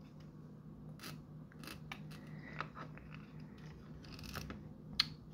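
Faint, scattered clicks and scrapes of fingers handling an Elmod Fusion Pro sound board in its plastic case and wiring, working the microSD sound card out.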